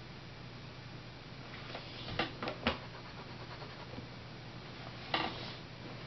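Small clicks and a short rustle from drawing supplies being handled: three quick clicks about two seconds in and a brief scrape about five seconds in, over a steady low hum.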